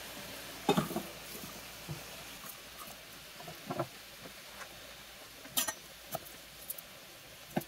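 Scattered light taps and clicks as garlic cloves and a chef's knife are set down and handled on a wooden cutting board, over a faint steady sizzle from a pan of tomatoes frying on the hob.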